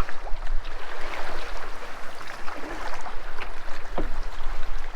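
Choppy waves splashing against a solo canoe paddled through rough water, with irregular sharp splashes over a steady wash of water, and wind buffeting the microphone in a low rumble.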